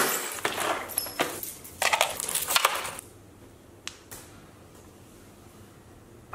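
Broken glass and metal debris clinking and crunching for about three seconds, then quiet with a single sharp click about four seconds in.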